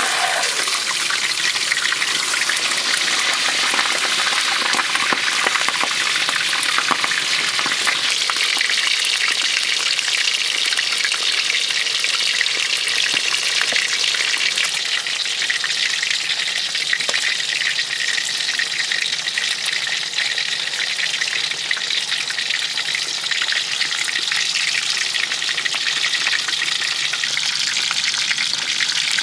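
A whole stingray deep-frying in hot oil in a steel wok: a loud, steady crackling sizzle with a dense spatter of small pops.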